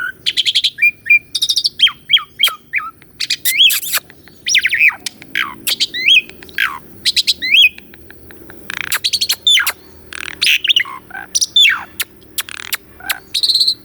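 Asian pied starling (jalak suren) singing a varied, chattering song: quick whistled notes that sweep up and down, mixed with sharp clicks.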